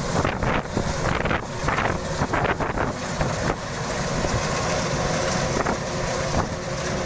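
Kubota DC-93 combine harvester running steadily, its diesel engine and threshing machinery making a dense, constant noise. Irregular gusts of wind hit the microphone in the first half.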